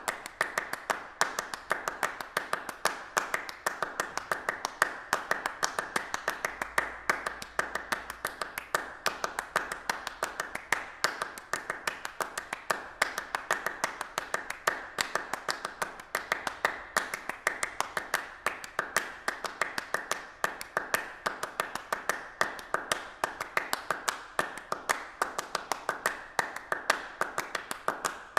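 A steady stream of sharp, uneven taps, several a second, like hands clapping or tapping, continuing without a break.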